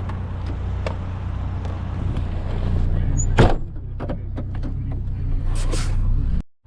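Pickup truck engine idling steadily. About three and a half seconds in there is one loud knock, followed by a few lighter clicks and clunks of metal being handled. The sound drops out briefly near the end.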